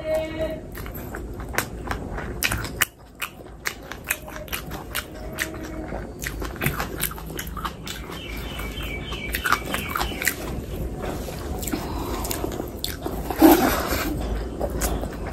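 Close-miked chewing with many short, wet mouth clicks, a person eating by hand. One louder burst comes near the end as a handful of rice goes into the mouth.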